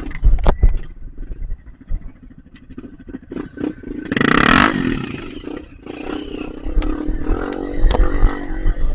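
Off-road trail motorcycle engine running and revving unevenly, with scattered clicks and knocks. A loud burst of noise comes about four seconds in.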